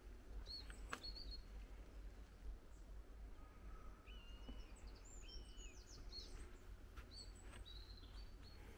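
Small songbirds chirping and calling faintly: scattered short, high chirps and two brief level whistles near the middle, over a steady low rumble.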